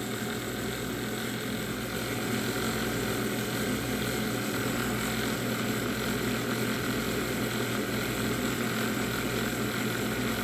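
Keurig K-Café milk frother running steadily, its whisk spinning the milk in the frothing cup with an even hum.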